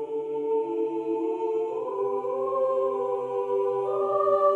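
Soundtrack music: slow, sustained ambient chords that shift to a new chord about two seconds in and again near the end.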